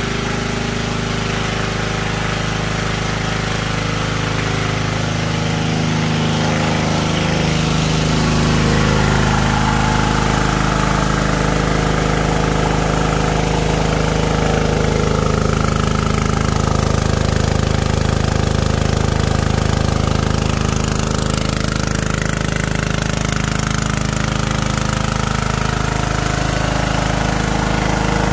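Bison 3 kVA petrol generator running steadily at constant speed.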